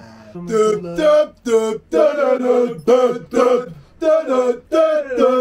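A man singing unaccompanied, in short held notes broken by brief pauses.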